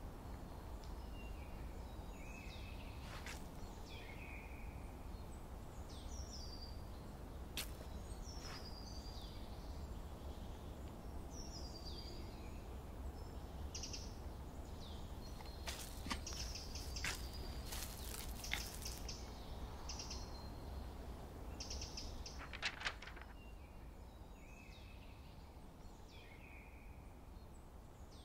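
Forest ambience: scattered short, falling bird chirps over a low steady rumble, with a few sharp clicks around the middle.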